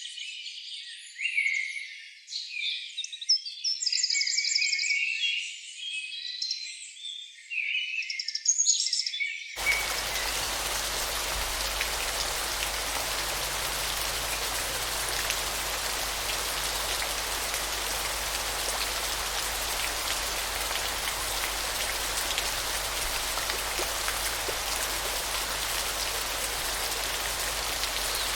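A busy chorus of high chirping and trilling animal calls, which cuts off suddenly about ten seconds in and gives way to steady rain.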